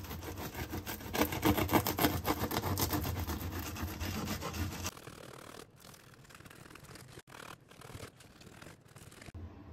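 Bread knife sawing through a home-baked whole wheat loaf on a wooden cutting board: a rapid run of rasping strokes through the crust, dropping suddenly to a much quieter, sparser sawing about halfway through.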